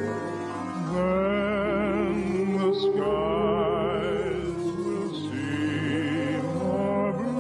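Operetta song with orchestra: a singer holds several long notes with wide vibrato, moving to a new note every couple of seconds.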